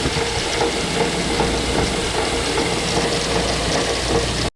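Grain-handling machinery at the bin running steadily: a continuous mechanical rattle with a constant hum, cut off abruptly at the end.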